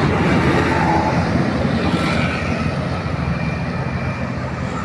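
Road traffic passing: a steady heavy engine rumble with tyre and road noise.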